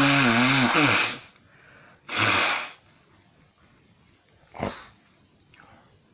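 A person sneezing hard and repeatedly: a long voiced sneeze at the start, a sharp sneeze about two seconds in, and a short, weaker burst near the five-second mark.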